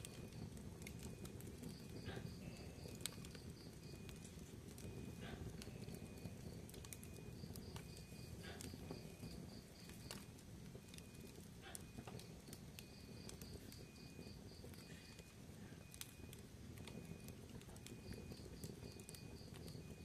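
Fire burning in a fireplace: a low steady rumble of flames with scattered crackles and pops. Faint high chirps come in short runs every few seconds.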